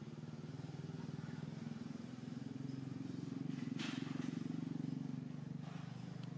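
A small engine running steadily, getting slightly louder around the middle, with a brief hiss about four seconds in.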